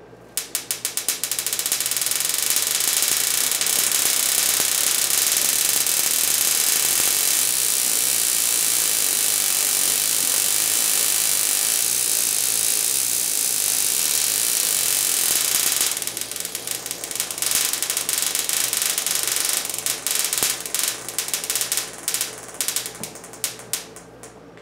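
Sparks jumping the narrow gap between a Wimshurst machine's discharge balls. A few separate snaps open into a continuous rapid high-pitched crackle of small sparks for about fifteen seconds. The crackle then breaks into separate irregular snaps that come less and less often and fade out near the end.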